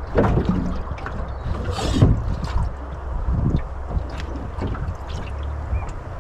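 Irregular knocks, clicks and thuds of gear being handled in a small boat, over a steady low rumble of wind on the microphone.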